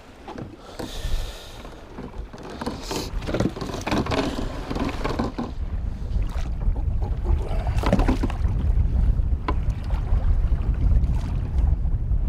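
Waves lapping against an aluminum fishing boat's hull and wind on the microphone, a low rumble that grows stronger from about four seconds in. Scattered sharp knocks and clicks come from handling at the landing net.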